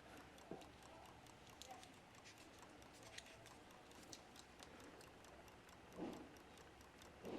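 Primex battery-operated clock movement ticking faintly, with a soft thump about six seconds in.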